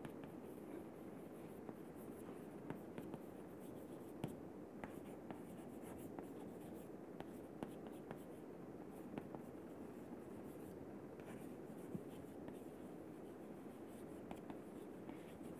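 Chalk writing on a chalkboard: faint scratching with many light, irregular taps as the letters are formed.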